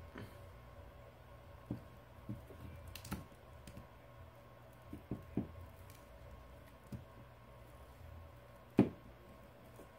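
Plastic prying tool clicking and tapping against the edge of a Samsung Galaxy S7 Edge as its heated glass back cover is worked free of its adhesive. The clicks are light and scattered, with one louder click near the end.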